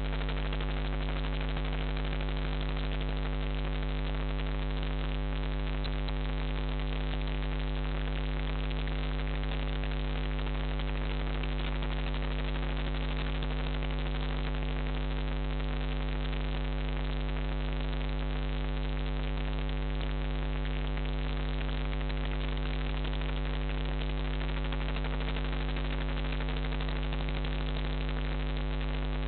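Steady electrical mains hum with hiss from a nest-box IP camera's audio, unchanging throughout, with no clear sound from the bird.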